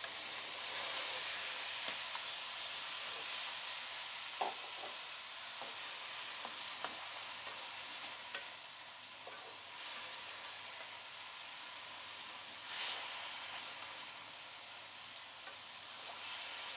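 Food sizzling in a frying pan as a spatula stirs it, with a few light taps and scrapes of the spatula on the pan. This is freshly added grated tomato frying with the noodles. The sizzle swells briefly about three quarters of the way through.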